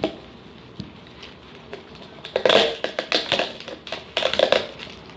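Plastic food packaging being handled: crinkling and clicking in two bursts, the first about two and a half seconds in and the second about four seconds in.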